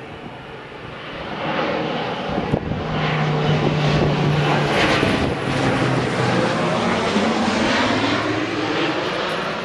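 Low-flying crop-duster plane's engine and propeller passing overhead: the drone swells about a second and a half in, stays loud, and drops in pitch as the plane goes by, with a faint high whine above it.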